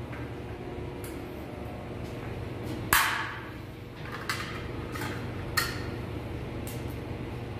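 Metal clinks and clanks of tools and panel parts being worked on an air-conditioner outdoor unit, a handful of separate knocks with the loudest about three seconds in, over a steady machine hum.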